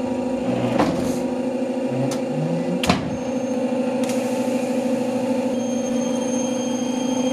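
A machine motor running with a steady hum, with a few sharp metal knocks about one, two and three seconds in.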